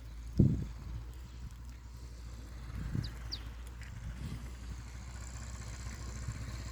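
New Holland TT75 tractor engine running steadily as a low hum, with a short loud thump about half a second in.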